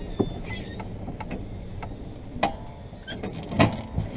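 Golf cart rolling into a parking space and coming to a stop: a low steady rumble with scattered clicks and knocks, the loudest a clunk about three and a half seconds in.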